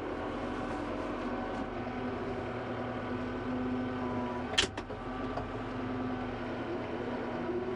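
Kubota M5-091 tractor's diesel engine running steadily, heard from inside the closed cab, with a held tone over the drone. A single sharp click about four and a half seconds in.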